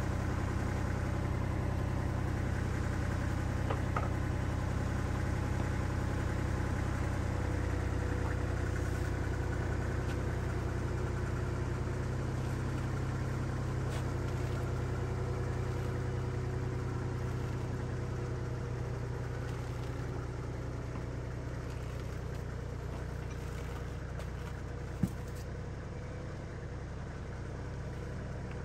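An engine idling steadily, with a few faint clicks and one short sharp knock near the end.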